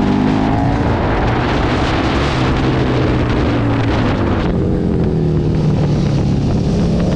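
KTM 1290 Super Duke's V-twin running at speed with heavy wind rush on the microphone. About four and a half seconds in the wind hiss drops off suddenly and the engine note falls as the bike slows, then climbs again near the end as it accelerates.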